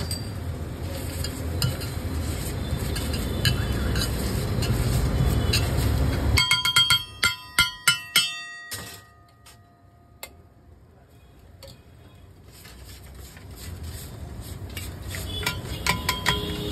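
A metal spatula clanking rapidly against a flat iron tawa griddle, each strike ringing, as egg bhurji mix is chopped and stirred on it. The clanking comes in two runs, one starting about six seconds in and another near the end. Before the first run there is a steady low rumble, and between the runs it goes quiet for a few seconds.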